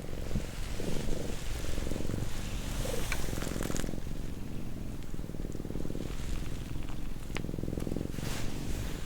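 Domestic cat purring steadily up close, a continuous low rapid rumble that rises and falls with each breath, with a few faint clicks and rustles.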